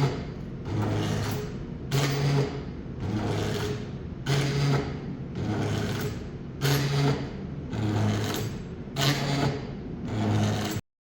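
Motor of a hybrid medical ventilator running through repeated breath cycles, about one every 2.3 seconds: each cycle is a higher-pitched whirring hum followed by a lower one as the mechanism drives one way and then back. The sound cuts off suddenly near the end.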